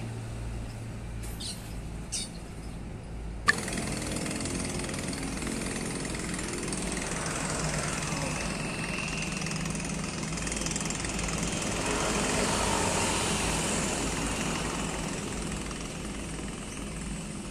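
A low steady hum with a few faint ticks, then, after a sharp click about three and a half seconds in, the diesel engines of tugboats towing coal barges running steadily. The engine sound grows louder toward twelve to fourteen seconds in, then eases off near the end.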